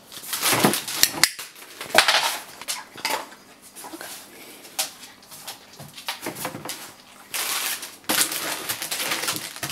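Crumpled clear plastic crinkling and crackling as an Australian Shepherd picks it up and carries it in her mouth, in irregular bursts with longer stretches of rustling near the end.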